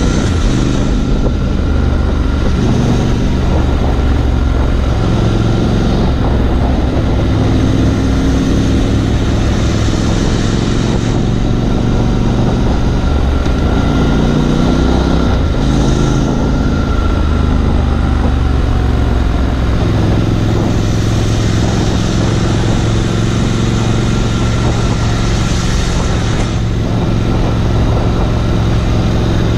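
Triumph Scrambler 1200 XE's 1200 cc parallel-twin engine running while riding, its pitch shifting up and down several times with throttle and gear changes, over steady wind rush on the camera microphone.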